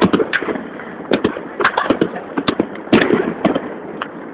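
Fireworks going off: a quick, irregular string of sharp bangs and crackles, densest about three seconds in.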